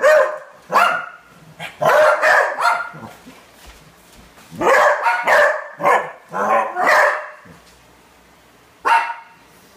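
Beagle barking repeatedly in short clusters of barks, then a single bark near the end: agitated alarm barking at a lit candle on the floor.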